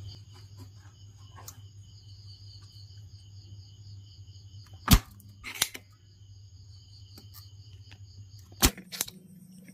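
Spring-loaded desoldering pump (solder sucker) snapping as its plunger is released to suck molten solder from circuit-board joints. There are two sharp clicks about five seconds in and two more close together near the end.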